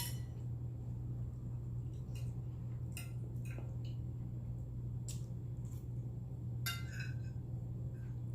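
Eating sounds: a few scattered sharp clicks and clinks of a fork on a plate, over a steady low hum.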